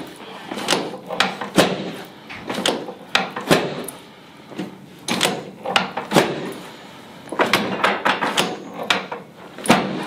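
A string of sharp knocks and clacks from a chiropractic adjustment, as the chiropractor thrusts with both hands on the back of a patient lying face down on a sectioned chiropractic table: about one or two knocks a second, with a quicker run of them near the end.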